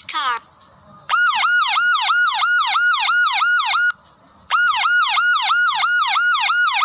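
Police car siren sound effect: a fast yelp wailing up and down about four times a second. It plays in two runs of about three seconds each, with a short break between them.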